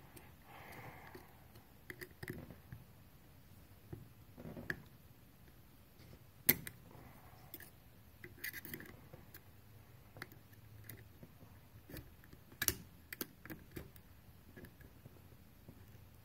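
Faint scratching and scattered small metal clicks of a pick working at a mechanical-advance spring on an MSD distributor, prying the spring's hooked end off its post. A few sharper clicks stand out, the loudest about six and a half seconds in.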